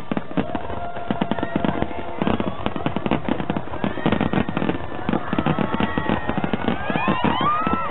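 Fireworks display at full intensity: a rapid, continuous barrage of shell bursts and crackling, with no break between the bangs.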